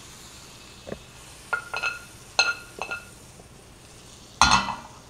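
A metal knife clinking and scraping against a nonstick frying pan several times, each clink ringing briefly, then a louder clattering knock about four and a half seconds in.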